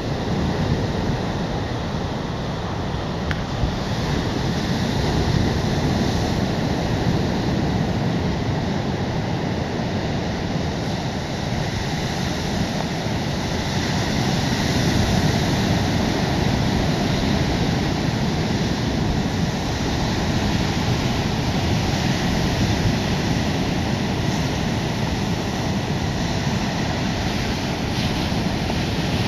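Ocean surf breaking and washing onto a sandy beach: a steady rushing noise that swells a little now and then, with wind buffeting the microphone.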